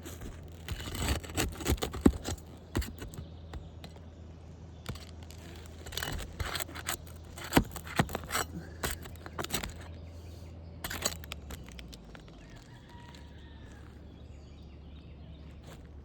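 Asphalt shingle being lifted off a roof: irregular crackling and scraping as the brittle, thermally cracked shingle starts to tear. It stops about eleven seconds in, leaving a steady low hum.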